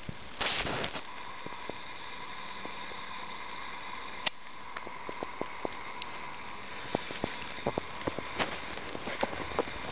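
Footsteps crunching in fresh snow over a steady hiss. The crunches are sparse at first and come quickly and irregularly in the second half. A short rush of noise comes about half a second in.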